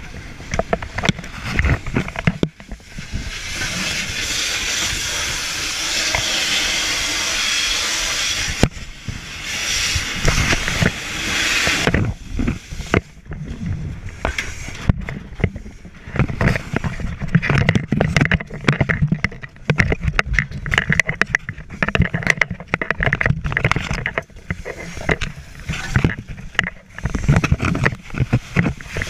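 Fire hose nozzle flowing water in a steady loud hiss for about six seconds, then again for about three seconds, as water hits a house fire. After that comes a run of irregular knocks, bumps and rustling from turnout gear and the hoseline moving through the smoke-filled room.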